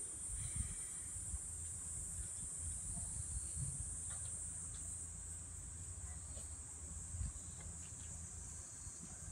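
Insects buzzing in a steady high drone, with a low rumble underneath.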